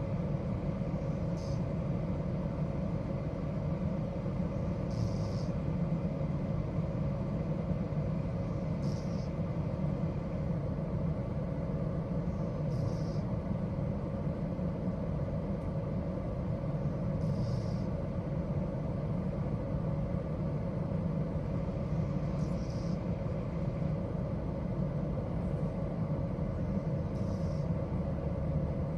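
Doberman breathing in her sleep: a soft hiss about every four to five seconds, seven in all, over a steady low rumble.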